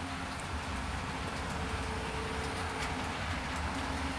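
Model train running along the track at half throttle: a steady running noise with a low hum and faint wavering tones.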